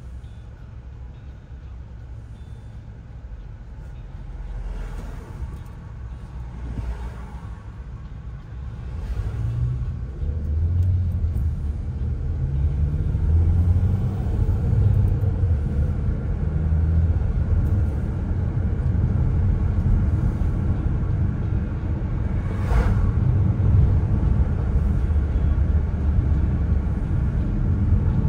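Car engine and tyre rumble heard from inside the cabin, growing louder about a third of the way in as the car speeds up, with the engine note rising several times. A brief sharp sound near the end.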